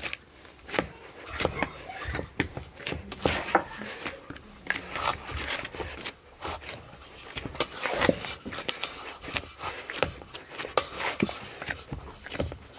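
Hands kneading a large mass of khajoor dough in a stainless steel basin: uneven slaps and sharp clicks, about two or three a second.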